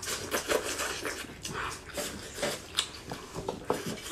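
Close-miked eating sounds: a person biting and chewing braised meat off the bone, with a quick string of wet mouth smacks and clicks.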